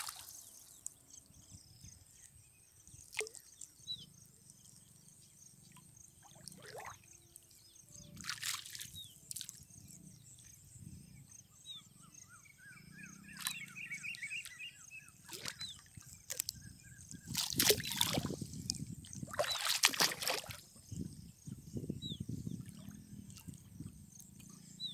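Lake water splashing, sloshing and dripping as a gill net with fish tangled in it is hauled up by hand. There are scattered splashes, the loudest a few in quick succession about three-quarters of the way through.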